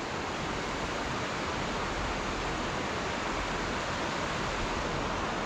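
Steady rushing of a mountain river flowing over rocks.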